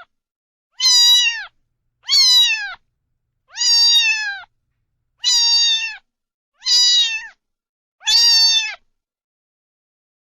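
Domestic cat meowing six times at a steady pace, about one call every one and a half seconds; each meow is fairly high, holds its pitch and then drops away at the end.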